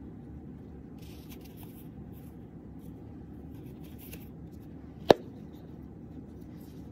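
Faux-leather jewelry box being handled, with faint rubbing and scraping, then its hinged lid snapping shut in one sharp click about five seconds in.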